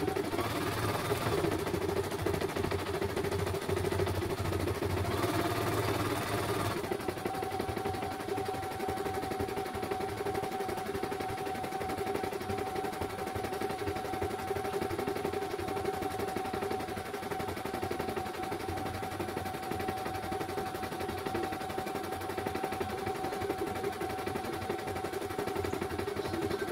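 CNY E900 computerized embroidery machine stitching a design, its needle running a fast, continuous chatter of stitches, played at double speed. A steady higher whine joins in about seven seconds in.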